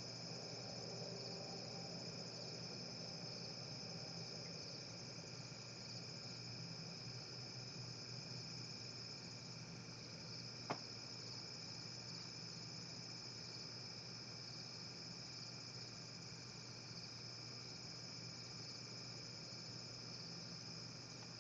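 Steady chorus of night insects, crickets, with a continuous high trill, over a faint low steady hum. A single sharp click comes about halfway through.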